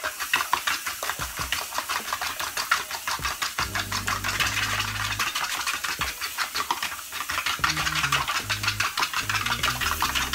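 A fork whisking raw eggs in a plastic bowl: a fast, steady clatter of about five or six strokes a second.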